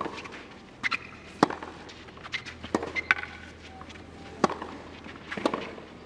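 A tennis rally on a clay court: sharp racquet strikes on the ball about every one and a half seconds, with softer ball bounces and footfalls between them.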